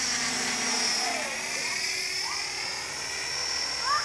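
Radio-controlled model helicopter flying. Its steady high whine rises and falls in pitch as it moves around.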